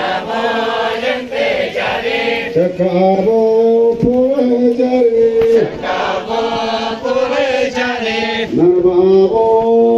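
A group of men and women chanting in unison as they dance in a line with linked arms, singing long held notes that step up and down in phrases of about three seconds.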